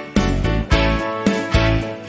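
Upbeat background music with a steady beat and plucked-string notes.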